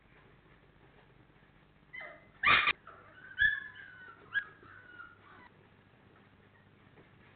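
Four-week-old Labrador Retriever puppies vocalizing: a sharp yelp about two and a half seconds in, followed by a short run of high-pitched whimpers and yips that die away about halfway through.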